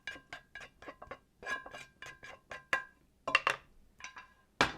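A utensil clinking against a ceramic or glass bowl: a quick run of light ringing clinks, then a few louder knocks, the loudest near the end.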